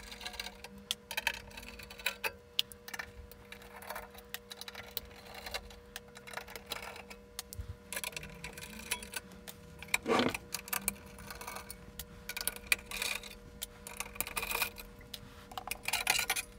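Screwdriver working screws out of a sheet-metal chassis: many small metallic clicks and ticks from the screws and tool, with a louder knock about ten seconds in and a clatter of metal parts being handled near the end.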